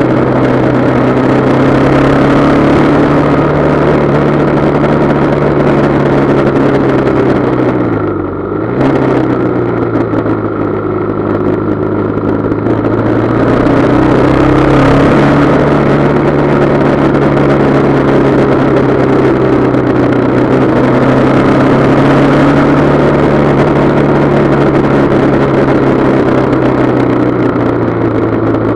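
Motorcycle engine running at steady cruising revs under a rush of wind, its note dipping and climbing back about eight seconds in as the throttle is eased off and reopened through a bend.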